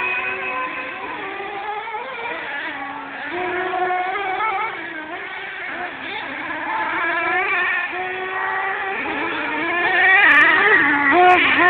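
Radio-controlled off-road cars racing, their motors' pitch repeatedly rising and falling with the throttle, growing louder about ten seconds in as a car comes close.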